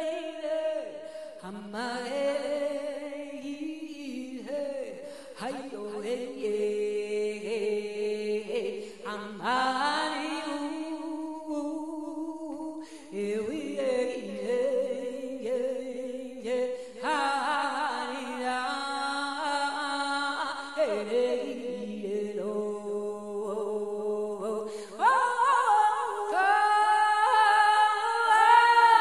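Unaccompanied voices singing a chant in long held notes, several pitches sounding together, no drum. The singing gets louder near the end.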